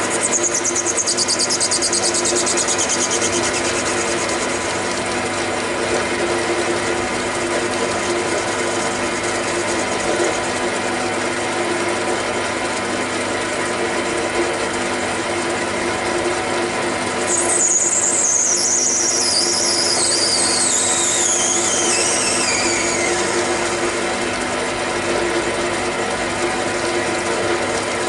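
Metal lathe running steadily while its cutting tool faces the end of an acetal plastic plug. A high-pitched squeal from the cut falls in pitch, once just after the start and again for several seconds from about two-thirds of the way through.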